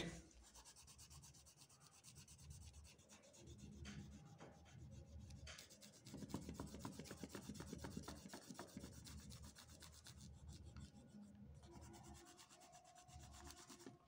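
Oil pastel rubbed back and forth over drawing-book paper in quick colouring strokes. It is faint throughout and busiest from about six to nine seconds in.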